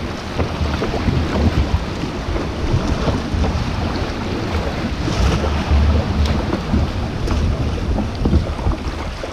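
Wind buffeting the microphone in a heavy low rumble, over sea water sloshing and splashing around a sea kayak as it is paddled.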